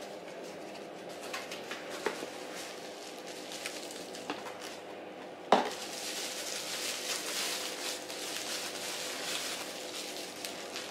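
Small cardboard box being opened with light scattered clicks, a sharp click about halfway through, then a plastic bag of small parts crinkling as it is handled, over a faint steady hum.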